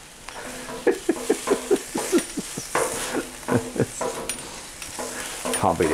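A man laughing hard in a long run of short pitched bursts, over the faint sizzle of chicken frying on a griddle.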